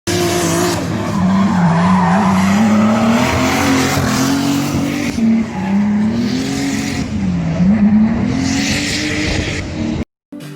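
A car drifting: its engine running hard with the revs swinging up and down, over a steady squeal of sliding tyres. It cuts off suddenly about ten seconds in.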